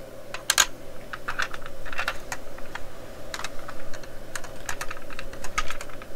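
Irregular light clicks and taps from a screwdriver driving a small screw into a die-cast model car kit and from the model being handled, over a faint steady hum.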